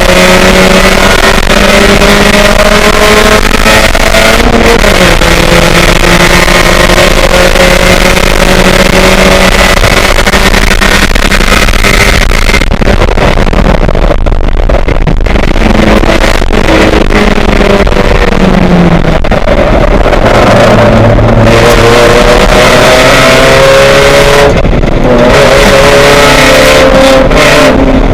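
Race car engine at full racing load, very loud. Its pitch climbs repeatedly and drops back as it goes through the gears and backs off, over a constant rushing noise.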